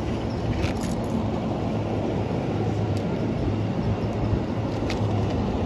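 Steady low hum and rumble of a stopped E233 series electric train's onboard equipment, with a few faint clicks.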